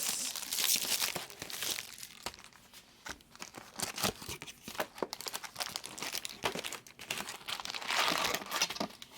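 Trading-card packaging crinkling and tearing as cards and wrappers are handled, with a longer run of crinkling at the start and again near the end and scattered light clicks in between.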